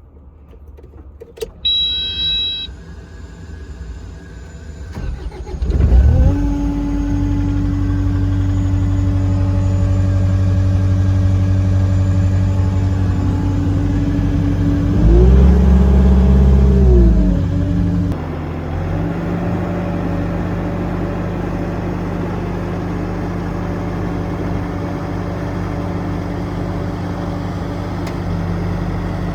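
Kubota SSV65 skid steer's four-cylinder diesel: a short electronic beep about two seconds in, then the engine cranks and starts about six seconds in and runs steadily. About halfway through it revs up briefly and drops back, then settles into a steady run.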